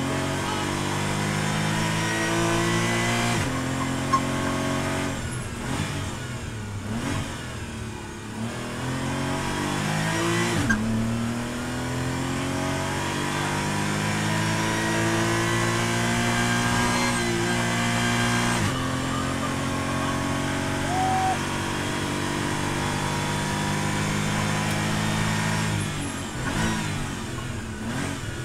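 Porsche GT4 race car's naturally aspirated flat-six, heard from inside the cabin, pulling hard with its note climbing in pitch in long runs. The pitch drops sharply about three and a half, eleven and nineteen seconds in. Near the end the revs fall away under heavy braking.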